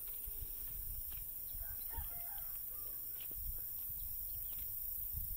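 Hens giving soft, quiet clucks while pecking at watermelon and grain, with a few faint taps from their beaks in a metal feed pan.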